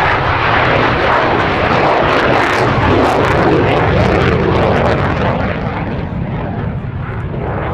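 Saab JAS 39 Gripen single-engine fighter jet in a display pass, a loud, steady jet noise that eases a little about five seconds in.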